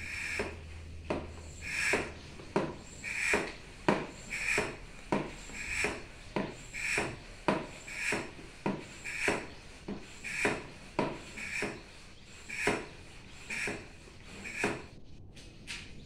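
Hand-operated vacuum oil extractor being pumped steadily, drawing down vacuum to suck engine oil from the car: a rhythmic swish of air through the plunger with each stroke, about one and a half strokes a second. The pumping stops shortly before the end.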